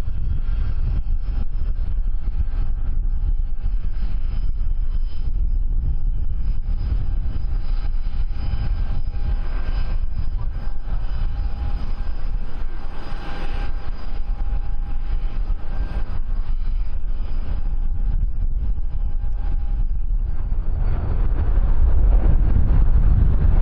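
Wind buffeting the microphone with a heavy low rumble, over the steady whine of aircraft engines that fades out about twenty seconds in; the wind rumble grows louder near the end.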